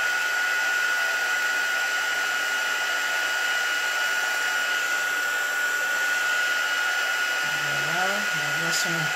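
Handheld craft heat gun blowing steadily, with a constant high whine from its fan motor, as it melts embossing powder on a stamped card.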